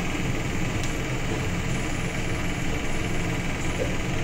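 Steady low rumble with a light hiss, the continuous background of a home kitchen with a wok of oil heating on the stove.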